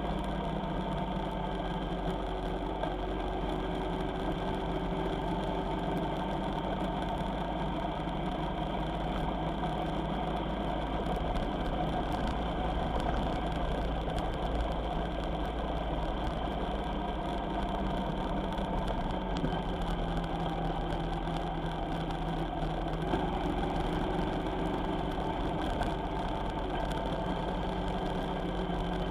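A vehicle's engine running steadily while on the road, its pitch drifting slowly down and then up again as the engine speed changes.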